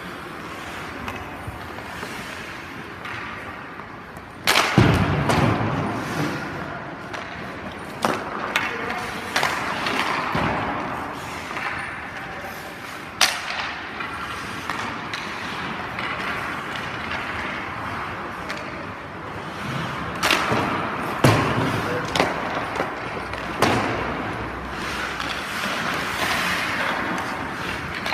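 Hockey goalie skates scraping and carving on the ice, with several sharp knocks that echo around the rink.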